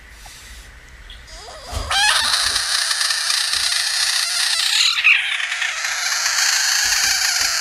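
Budgett's frog giving its defensive scream with its mouth wide open: one long, loud hissing scream that starts about two seconds in, briefly falters near five seconds and carries on.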